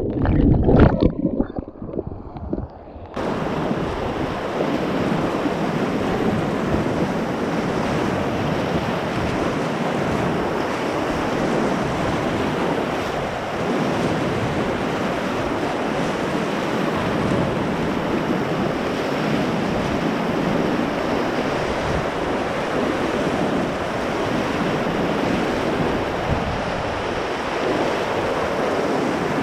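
Muffled underwater gurgling and knocks for about the first three seconds, then the sound suddenly opens into steady rushing river water and the splash of a whitewater kayak's bow pushing through the cold spring-flood current.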